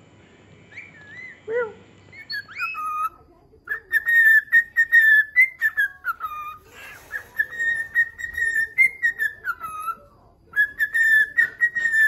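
A few short bird calls, then a cockatiel whistling a long tune from about four seconds in: held notes at one high pitch broken by quick warbles and trills, pausing briefly near ten seconds before starting again.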